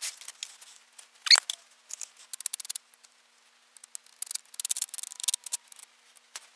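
Intermittent short bursts of rubbing and scratching, with a brief squeak about a second in, as parting compound is worked onto a pattern and molding sand in the drag.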